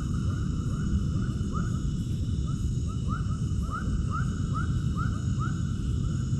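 Short arching animal calls repeating about twice a second, coming faster in the second half, over a loud steady low rumble.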